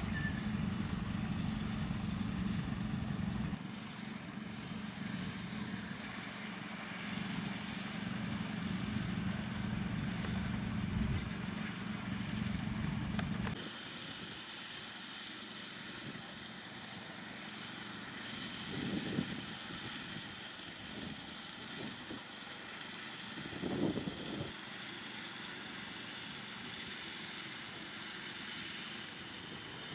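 A small engine running steadily with a low hum, cutting off abruptly about thirteen seconds in; a fainter steady background follows, with two brief swells of sound.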